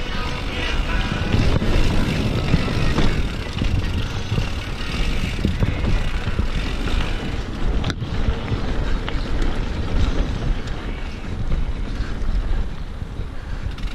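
Wind rushing and rumbling on a GoPro's microphone as a mountain bike rides fast down a dirt singletrack, mixed with tyre and bike rattle over the trail. The sound drops out for an instant about eight seconds in.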